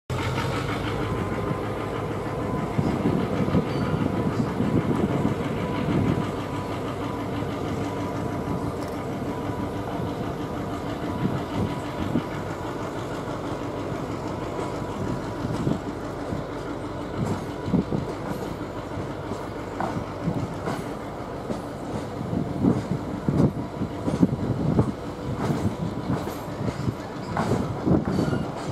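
Passenger train carriages rolling past below, wheels knocking and clicking over the rail joints irregularly, with a steady hum under the rumble. The knocks come thicker near the end.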